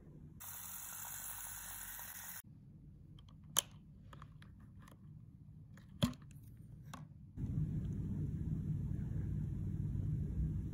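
Handling noise from a plastic steam iron. After a short stretch of hissy rustling come two sharp plastic clicks, the second as the water-fill flap is thumbed open. A steady low rumble then takes over and is the loudest part.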